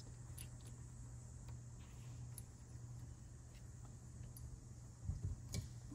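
Faint, scattered light clicks of small metal carburetor parts being handled, an SU float bowl with its float and hinge pin, over a steady low hum, with a few soft low knocks about five seconds in.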